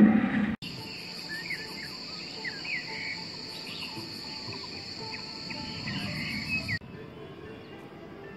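Insects droning in a steady high whine with a pulsing buzz above it, and birds chirping short rising and falling calls, for about six seconds. It opens with a brief loud low sound that cuts off abruptly, and ends on a quieter outdoor background.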